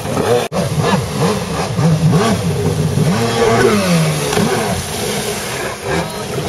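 Stand-up jet ski engine revving hard, its pitch swinging up and down again and again as the craft is thrown through tricks, with a brief break about half a second in.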